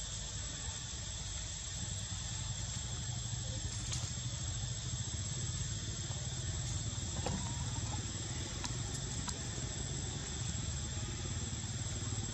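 Steady low hum of a running engine, with an even hiss above it and a few faint clicks.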